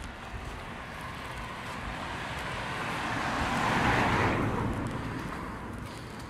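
A car driving past, its tyre and engine noise swelling to a peak about four seconds in and then fading away.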